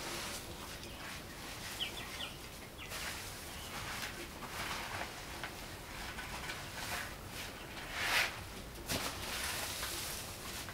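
Dung and straw being scooped by gloved hands from a barn floor into a woven basket: uneven rustling and scraping, louder about eight seconds in. Chickens cluck a few times near the start.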